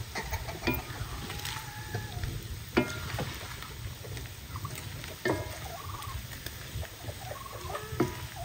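Shredded meat frying in oil in a stone-coated pan, sizzling steadily while a wooden spoon stirs it, with scrapes and knocks of the spoon against the pan.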